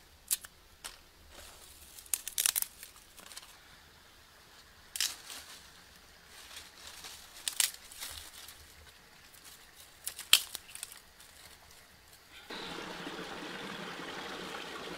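Dry twigs and sticks snapped and broken by hand, sharp cracks coming irregularly. About twelve and a half seconds in it cuts to a steady rush of stream water flowing around a pan dipped in it.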